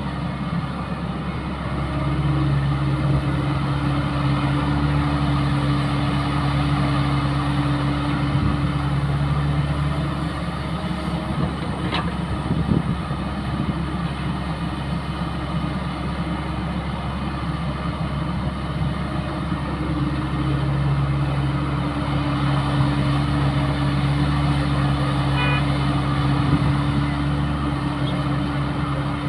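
Caterpillar E120B hydraulic excavator's diesel engine running while digging, growing louder and heavier under hydraulic load twice, for about eight seconds each time. A single sharp knock comes near the middle.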